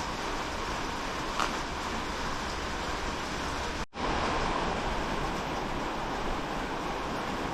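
A steady rushing hiss-like noise, with a brief drop-out just under four seconds in.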